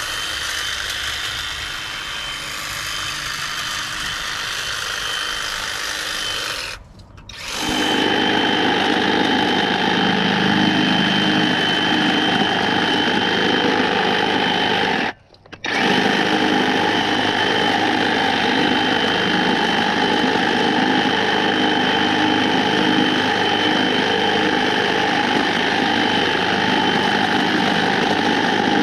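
Ego battery-powered hedge trimmer running with a steady high whine. It stops for about a second roughly seven seconds in and again briefly about fifteen seconds in, then starts up again each time.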